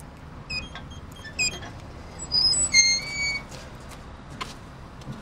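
Skateboard squeaking as it is rolled along: a few short high squeaks, then a longer steady squeak about two seconds in.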